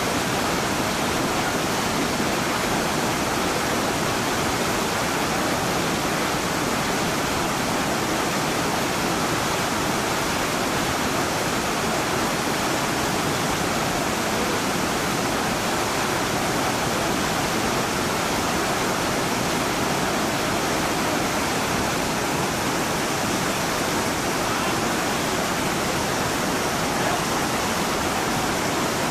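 Whitewater rapid in a steep boulder-choked creek, rushing steadily as the water pours down a rock chute.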